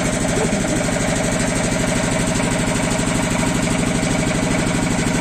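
Jiangdong JD 330 35 hp diesel engine driving a 40 kVA generator, running steadily with an even, rapid chug.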